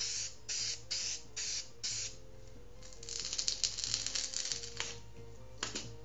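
Aerosol spray-adhesive can hissing in short bursts, about two a second, for the first two seconds. Then a snap-off utility knife works at a foam sheet: a dense run of crackles and clicks about three seconds in, and a sharp click near the end. Soft background music with held notes underneath.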